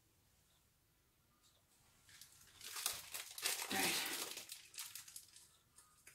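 Food packaging crinkling and rustling as it is handled. It starts about two seconds in, is loudest around the middle and then dies away.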